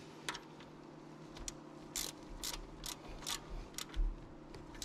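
Ratchet clicking in short strokes, a few irregular clicks a second, as the timing belt tensioner is turned to tighten a new timing belt.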